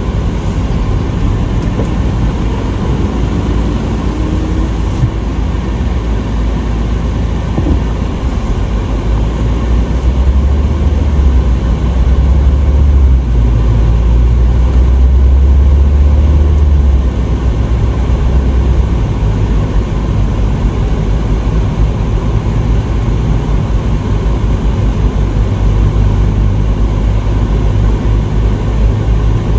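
Steady low rumble of road and engine noise heard inside a moving car, growing louder for several seconds in the middle.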